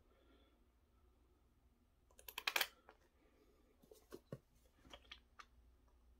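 Small plastic clicks and taps from handling a bottle of school glue: a quick run of sharp clicks a couple of seconds in, then a few scattered ticks.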